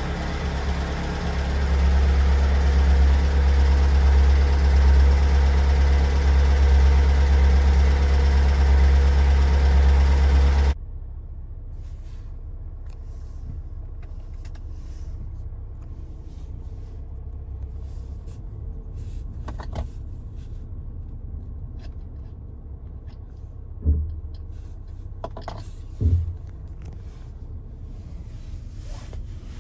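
Kia Sorento 2.2 diesel engine running steadily, then cutting off abruptly about eleven seconds in. After that only a faint low rumble remains, with two short thumps near the end.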